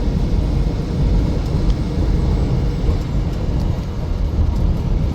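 Steady low rumble of road and engine noise heard from inside a vehicle cruising on the highway.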